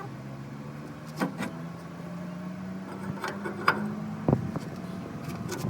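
A truck engine idling with a steady low hum. A few sharp metallic knocks and clicks come over it, about a second in and again between three and four and a half seconds in.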